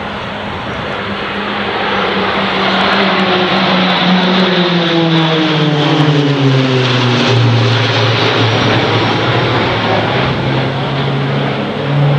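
A formation of four RAAF Roulettes Pilatus PC-9/A turboprop trainers flying past overhead. The propeller drone builds to its loudest about halfway through, then drops in pitch as the aircraft pass and move away.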